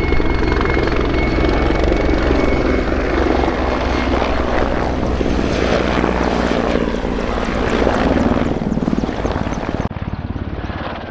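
Mil Mi-24 Hind attack helicopter flying a display pass overhead: the steady, loud sound of its twin turboshaft engines and fast-beating five-bladed main rotor. About ten seconds in the sound drops abruptly to a quieter, duller level.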